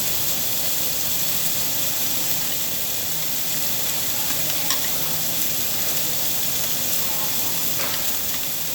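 Meat sizzling steadily on a tabletop Korean barbecue grill. There are a couple of light clicks about five and eight seconds in.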